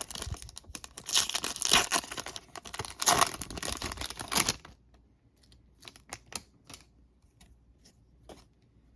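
Plastic wrapper of a 2021 Panini Donruss football retail pack crinkling and tearing open, for about the first four and a half seconds. After that, a few light taps and clicks as the cards are handled.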